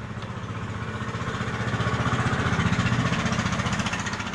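A small engine running with a fast, even pulse, growing louder towards the middle and easing off near the end.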